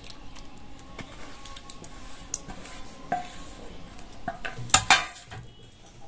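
Metal spoon scraping and tapping against a stainless steel bowl as spice paste is spooned onto raw chicken, with small scattered clicks and two sharper, ringing clinks near the end.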